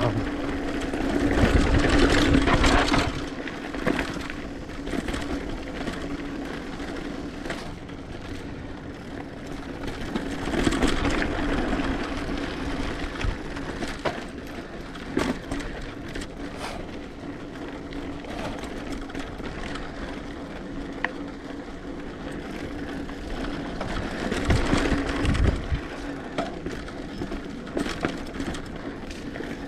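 Mountain bike being ridden over a dirt trail: tyres on the ground and the bike rattling and clicking over bumps, with a steady buzz underneath and louder rushes about 1 to 3 seconds in, around 11 seconds and around 25 seconds.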